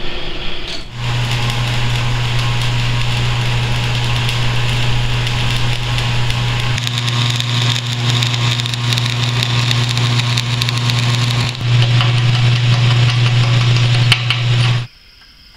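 Electric arc welding on steel: a steady hum with a hissing crackle from the arc. It starts about a second in, breaks off briefly and resumes, then cuts off suddenly near the end.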